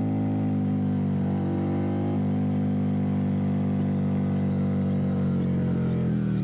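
Harley-Davidson V-twin motorcycle engine running steadily at cruising speed on a downhill road, its pitch stepping down slightly near the end.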